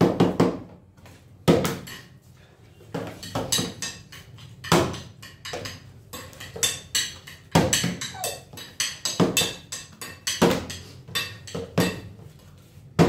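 Plastic water bottle being flipped and landing on a wooden tabletop, knocking again and again, the loudest landings about every three seconds with smaller knocks and spoon clinks between.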